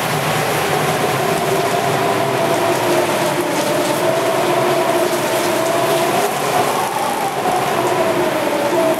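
Typhoon wind and heavy rain in a loud, steady rush, with a steady, slightly wavering hum running underneath.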